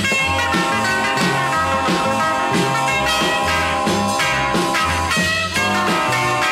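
Background rock music with a steady, repeating bass line.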